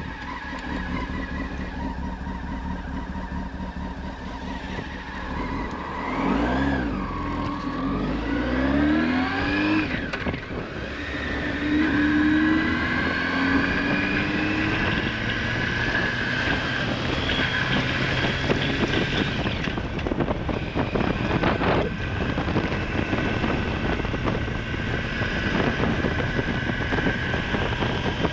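Honda Hornet 900's inline-four engine running steadily, then revving and pulling away about six seconds in, its pitch rising and dropping through gear changes as the motorcycle accelerates, with wind noise growing as speed builds.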